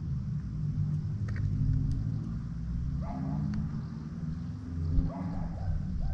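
A steady low rumble, with a dog barking twice in the distance, about three seconds in and again around five seconds in.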